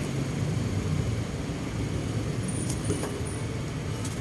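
Steady low mechanical rumble in the background, with a faint click about three seconds in.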